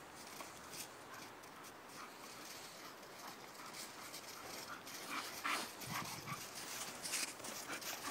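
An American Staffordshire terrier puppy and a bull terrier puppy play-wrestling in snow: scuffling and panting with short dog noises, busier and louder in the second half.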